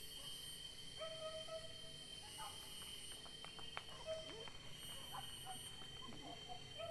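Insects buzzing in very high-pitched pulses of under a second, repeating about every two and a half seconds over a steady high insect drone, with a few short, high calls and faint twig and leaf clicks.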